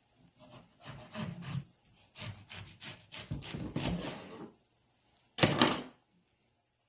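A knife sawing back and forth through a watermelon's rind, about two rasping strokes a second, then one louder, short burst of noise about five and a half seconds in.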